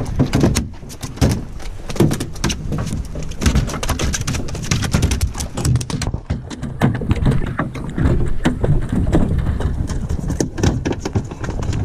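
Freshly landed mahi-mahi (dolphinfish) flopping on a boat deck, its body and tail slapping the deck in rapid, irregular knocks.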